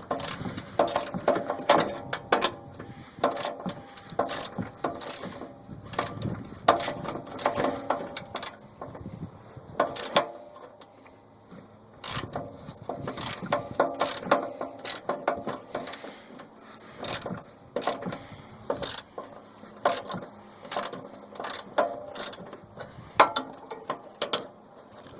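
Ratchet wrench clicking in repeated back-and-forth strokes as a 9/16 ground bolt is backed out, with a short pause about halfway through.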